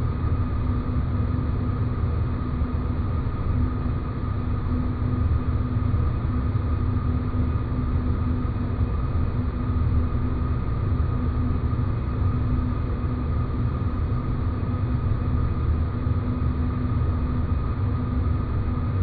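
Sci-fi space-planet ambience: a steady deep rumble with a constant hum at two fixed pitches, one low and one higher, over an even noise bed.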